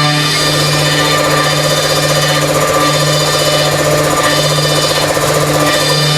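Background music with a steady low drone, with a fast rattling pulse joining about half a second in and stopping near the end.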